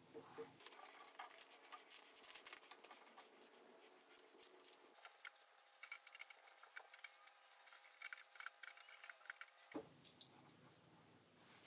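Faint dripping and light splashing of Simple Green cleaning solution as a resin 3D print is swirled in a wash jar and lifted out, with many small scattered clicks.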